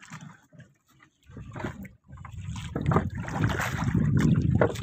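Rushing wind and sea-water noise on a small boat, faint for the first two seconds, then loud from about two seconds in.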